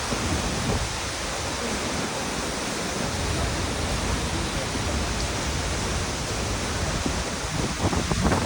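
Steady rushing of a waterfall, with uneven low rumbles of wind buffeting the microphone.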